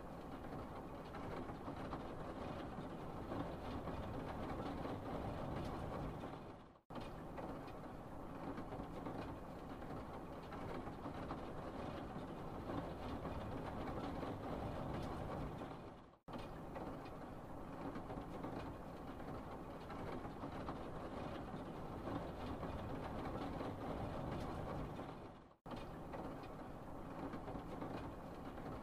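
Steady background noise with a low hum and even hiss, no distinct events, broken three times by a brief fade to silence about every nine seconds.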